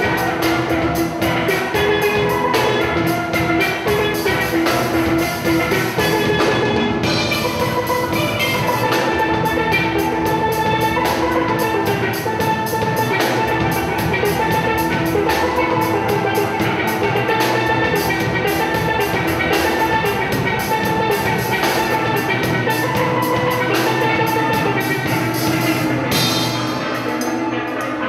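Steel band music: steel pans playing fast, ringing melodic notes over a steady drum-kit beat.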